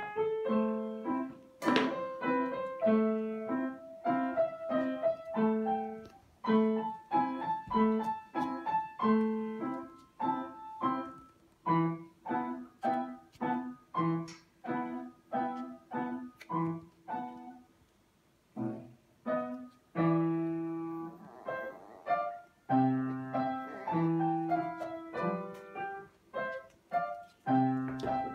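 Solo piano music, single notes and chords struck in a steady flow, with a short pause about two-thirds of the way through.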